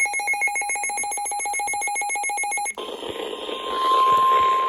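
An electronic alarm beeps rapidly, about ten beeps a second, for nearly three seconds. It gives way to the NOAA Weather Radio 1050 Hz warning alert tone, a single steady tone over radio static that marks a warning broadcast.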